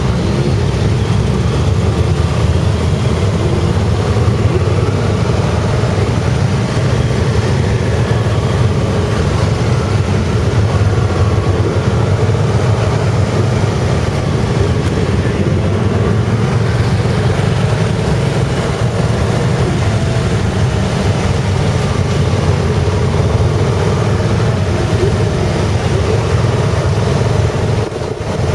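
Motorcycle and scooter engines running steadily at low road speed, heard from a bike riding within a column of them, with wind noise over the microphone. The level dips briefly near the end.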